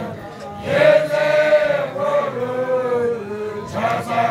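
Men's voices chanting together, Basotho initiation-style: a phrase of long held notes that steps down in pitch, starting about a second in, with a fresh line starting near the end.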